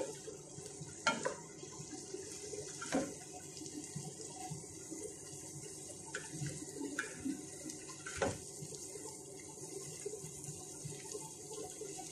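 Shredded vegetables sizzling in a deep pan as they are stir-fried, a steady hiss, with a few knocks and scrapes of tongs and a wooden spatula against the pan, the sharpest about a second in, three seconds in and eight seconds in.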